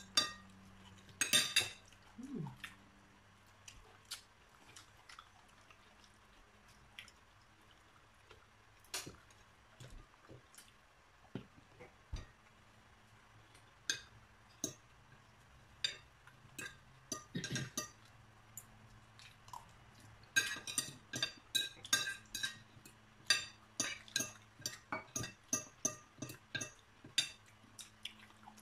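Fork and spoon clinking and tapping on dinner plates in scattered single strikes, then a quick run of many clinks about two-thirds of the way through, as someone scrapes up food. A faint steady hum sits underneath.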